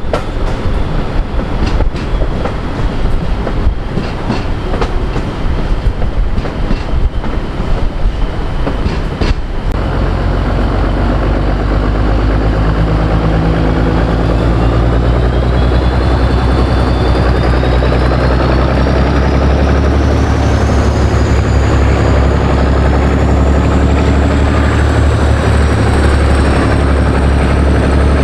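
Train wheels clicking and knocking over rail joints. After a cut about ten seconds in, a diesel locomotive engine runs steadily with a high whine that rises in pitch.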